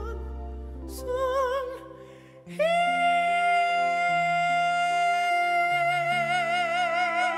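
A male singer sings live over a backing accompaniment, with a few short phrases that waver in vibrato. About two and a half seconds in he holds one long high note for about five seconds while the chords underneath change.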